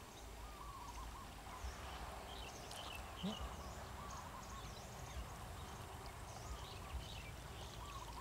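Birds calling: a short curling call repeated every couple of seconds, with scattered high chirps, over a faint steady outdoor hiss.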